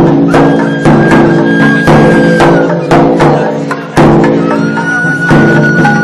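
Traditional percussion music: drum strikes falling about once or twice a second over a steady low drone, with a high held tone sounding twice, the second time near the end.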